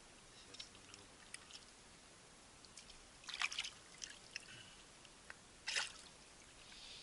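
Small splashes and drips of shallow river water as a fish is handled and rinsed in it by hand, in a few short bursts, the loudest about three and a half and six seconds in.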